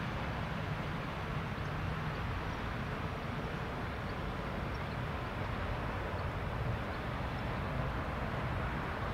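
Cessna 510 Citation Mustang's twin Pratt & Whitney Canada PW615F turbofans at low taxi power, heard from across the airfield as a steady hiss and rumble.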